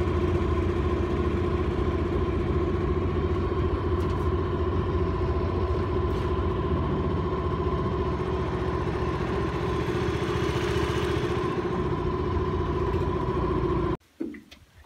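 Outboard motor of a small aluminium boat running steadily under way, heard from aboard, with a steady droning hum; it cuts off suddenly near the end.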